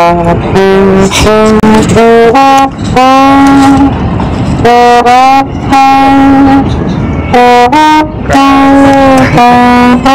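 A solo trombone plays a slow melody of held notes, one at a time, some sliding up into pitch.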